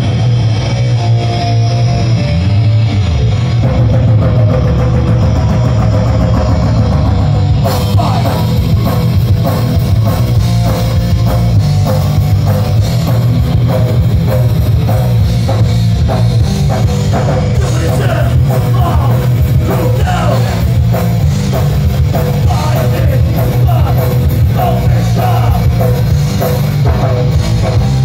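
Live heavy rock band playing loud through a large PA: distorted electric guitars, bass and drum kit. The sound turns fuller and brighter about eight seconds in.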